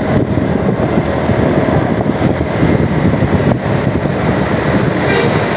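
Road traffic passing close at speed: a loud, steady rumble of engines and tyres with wind buffeting the microphone.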